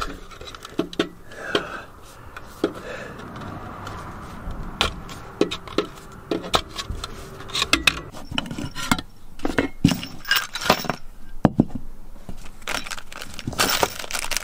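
Irregular clicks, knocks and small clinks of a blue plastic round electrical box and loose metal screws being handled and fitted by hand.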